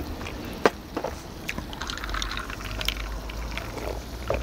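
Pork belly sizzling and crackling on a large cast-iron cauldron-lid griddle, with scattered small pops. There is one sharp click about two-thirds of a second in, and a low steady hum underneath.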